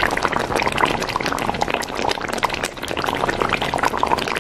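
Thick chicken korma gravy simmering in a metal wok, a steady crackle of small bubbling pops, as a steel ladle scoops up the gravy and pours it back in.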